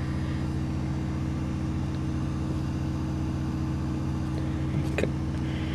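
A steady low machine hum, with a faint click about five seconds in.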